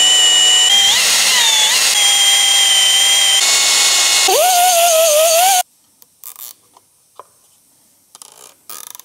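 Cordless drill with a small twist bit drilling through a thin aluminium plate: a steady high motor whine that wavers in pitch as the bit bites, drops lower about four seconds in, then stops suddenly. A few faint clicks follow.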